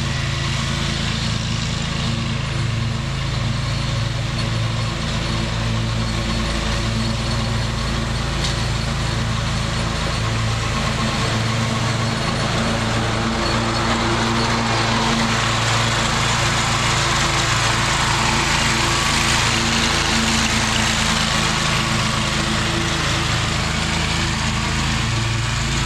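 Scag zero-turn mower running at cutting speed with its blades engaged: a steady engine drone under a rushing hiss that grows louder midway as the mower comes close, then eases as it moves off. The blades turning show the repaired PTO clutch now engaging.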